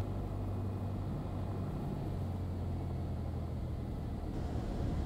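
Cessna 172's piston engine and propeller droning steadily at low power in the cabin during the landing flare just above the runway, with rushing air noise; the hum drops slightly in pitch about two seconds in.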